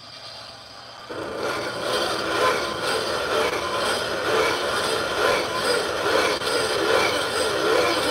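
Blender running, a steady churning whir that starts about a second in as it blends a red liquid mixture.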